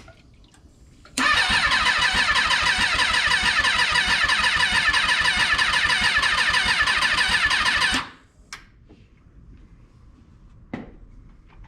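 Rebuilt Kawasaki 636 inline-four micro sprint engine cranking over on its electric starter in an even rhythm for about seven seconds without catching, then cutting off suddenly when the starter is released.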